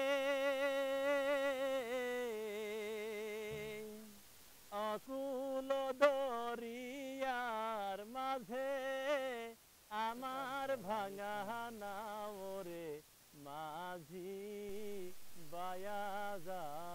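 A solo voice singing unaccompanied: a slow tune with long held, wavering notes and short pauses between phrases.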